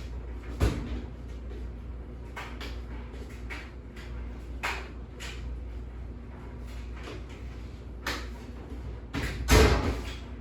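Scattered knocks and clunks of household objects being handled, like cupboard doors and items being set down, with the loudest knock about nine and a half seconds in, over a low steady hum.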